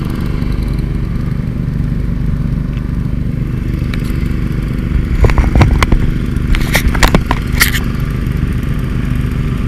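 Gold dredge's small gas engine and pump running steadily, with a spell of sharp clattering knocks of stones and gravel from about five to eight seconds in.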